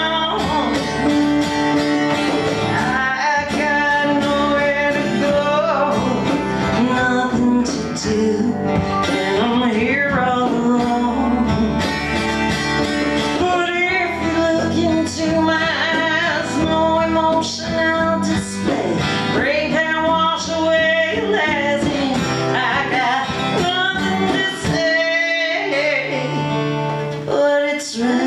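Live acoustic band playing a country song: singing over strummed guitars.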